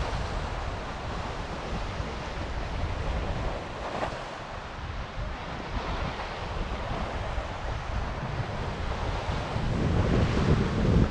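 Wind buffeting the microphone over the wash of Lake Michigan waves breaking on the shore, louder near the end.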